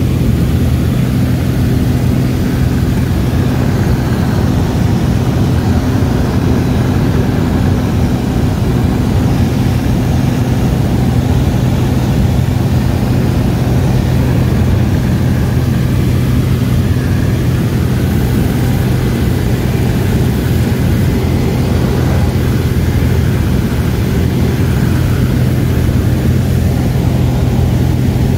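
Cessna light aircraft's engine and propeller running steadily in cruise, heard from inside the cabin as a loud, unchanging low drone.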